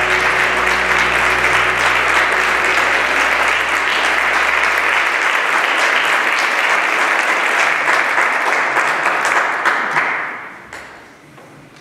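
Audience applauding in a hall, steady and then dying away about ten seconds in.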